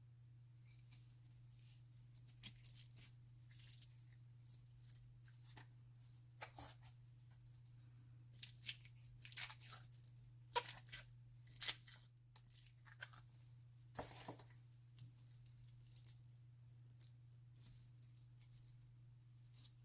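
Glitter slime being stretched, squished and mixed by hand, making irregular sticky crackles and pops, busiest in the middle. A steady low electrical hum runs underneath.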